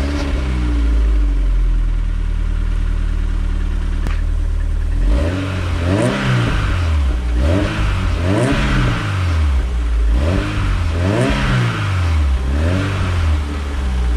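MG TF's four-cylinder Rover K-series engine, just started, settles to idle through its new stainless steel exhaust back box. From about five seconds in it is revved four times, each rev rising and falling back to idle, about two and a half seconds apart.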